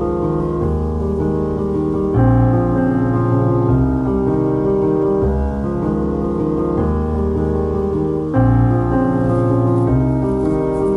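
Background instrumental music led by piano, sustained chords changing every few seconds.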